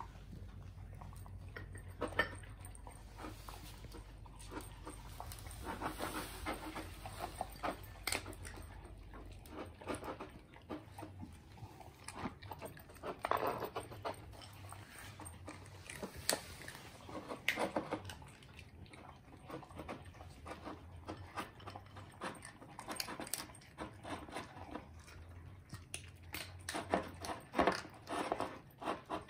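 A Pomeranian and a beagle eating dry kibble from bowls: irregular crunching, with sharp clicks of kibble and snouts against the bowls scattered throughout.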